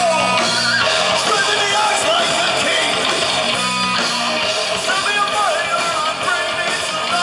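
Heavy metal band playing live: distorted electric guitar, bass guitar and drum kit, loud and without a break.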